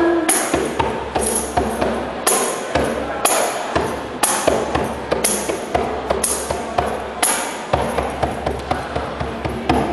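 Djembe and tambourine played together in a steady rhythm, the tambourine's jingles ringing out about once a second between the drum strokes.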